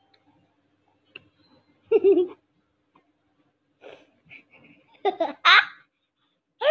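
Young girls laughing and giggling in short bursts, with a quick high squeal rising in pitch about five and a half seconds in.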